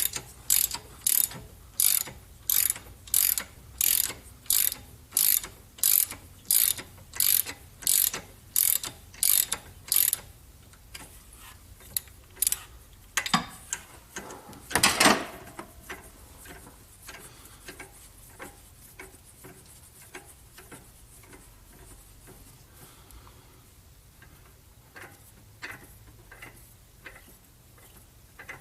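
Hand ratchet wrench clicking in steady back-and-forth strokes, about one and a half a second, as it turns the forcing screw of a harmonic balancer puller. The clicking stops about ten seconds in. A single loud knock comes about fifteen seconds in, followed by faint scattered ticks.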